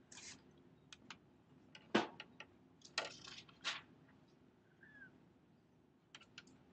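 Scattered clicks and taps, with one louder knock about two seconds in, a few short scuffing noises just after, and a brief faint squeak near the middle.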